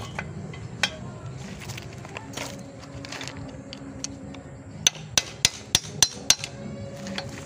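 Metal hammer striking a steel tool held against the cross joint (universal joint) of a Toyota Kijang propeller shaft, to free its snap rings. There is a single sharp click about a second in. Past the middle come six quick, ringing metallic blows, about three a second.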